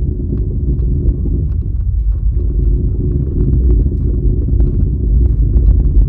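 Car rolling at slow speed: a steady low rumble with many small, irregular clicks on top. This is the constant popping that can mean a worn inner (transmission-side) CV joint.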